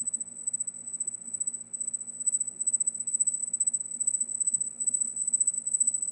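A steady high-pitched whine, a single unbroken tone, over a faint low hum. The breakers call it a high-pitched sound and take it for a fault in their audio setup rather than the air conditioning.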